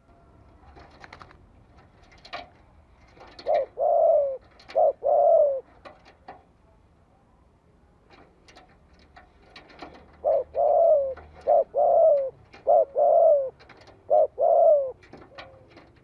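Spotted dove cooing as a decoy to draw in wild doves. It gives two phrases of low coos, each made of short-then-long note pairs: two pairs a few seconds in and four pairs later on. Faint sharp clicks fall between the phrases.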